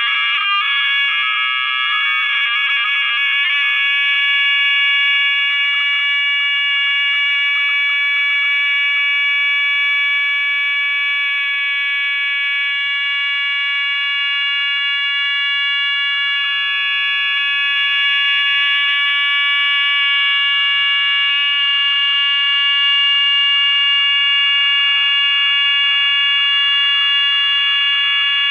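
Audio feedback from a phone screen-recording its own playback of earlier recordings: a loud, steady electronic whine of several high tones sounding together, rougher and warbling for the first few seconds.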